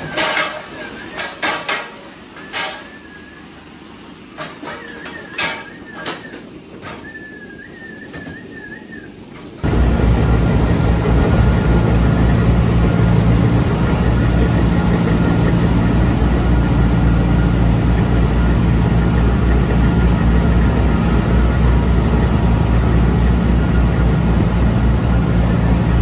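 First scattered clicks and short warbling high tones; then, about ten seconds in, the sound cuts to the loud, steady running of a tractor-driven bale chopper blowing straw bedding, with a strong low engine hum.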